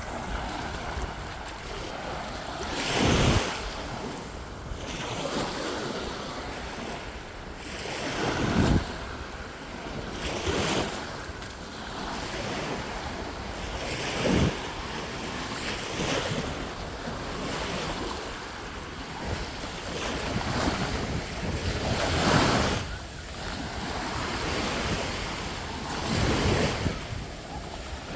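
Black Sea waves breaking on the shore, a loud surge every few seconds over a steady wash of surf, with wind buffeting the microphone.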